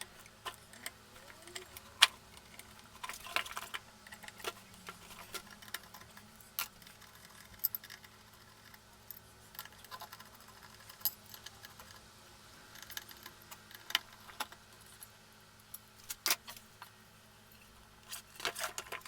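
Irregular metallic clicks and clinks of an Allen key and hand tools undoing the 6 mm bolts that hold a motorcycle brake disc to its wheel hub.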